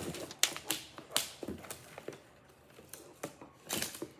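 Scattered clicks and crackles of toy packaging being handled and pried open by hand.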